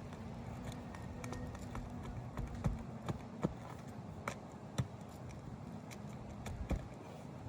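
A few sharp knocks and taps, irregularly spaced, about six of them in the second half, over a steady low background hum.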